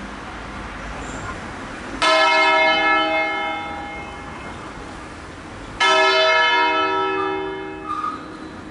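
Two strokes of the Crespi (Crema, 1885) church bells, nearly four seconds apart, each ringing out and slowly dying away, as part of a funeral peal on the six-bell ring.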